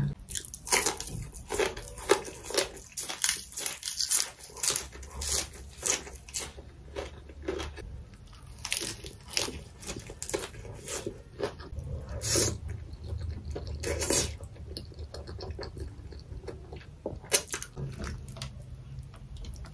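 Close-miked mukbang eating sounds: chewing, crunching and mouth smacks while eating boiled goat head meat and raw greens. There is a rapid run of sharp crunches that thins out after about eight seconds into scattered smacks.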